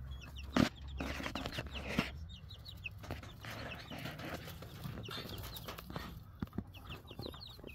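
Young chickens, pullets growing out of their baby feathers, peeping in quick runs of short high notes, with a few sharp clicks among them.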